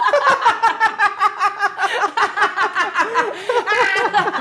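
A woman laughing hard: a rapid, unbroken string of high-pitched 'ha' bursts.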